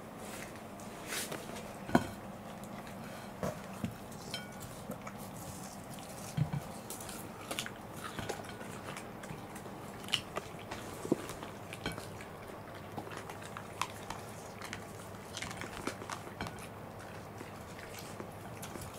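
Two Welsh corgis biting and chewing watermelon wedges off plates: irregular wet crunches and clicks, the sharpest about two seconds in. A faint steady hum lies beneath.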